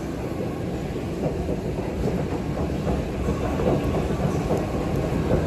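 New York City subway train rumbling and clattering on the rails, growing steadily louder as it approaches.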